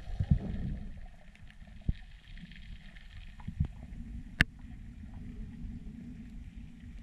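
Underwater sound through a diver's camera: a low, steady water rumble with a few soft knocks. About four and a half seconds in comes one sharp click, which fits the speargun being fired.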